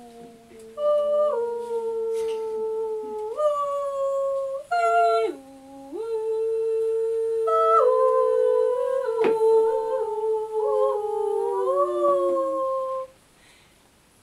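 Two singers humming long, overlapping held notes, each voice stepping from one steady pitch to the next. One short click sounds about nine seconds in. The voices stop about a second before the end.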